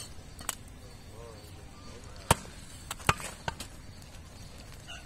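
A butcher's large knife chopping beef brisket on a wooden stump chopping block: four separate sharp chops, the loudest about two seconds in.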